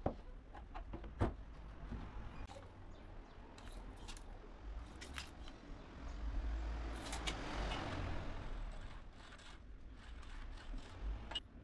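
Melamine-faced MDF boards being handled on a wooden workbench, with a few light knocks in the first seconds. This is followed by scratching and rubbing as the boards are measured and marked with a tape measure and pencil, loudest around the middle.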